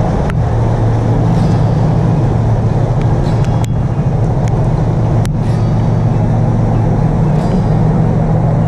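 Steady low engine hum from idling vehicles, under a hiss of light rain, with a few sharp ticks.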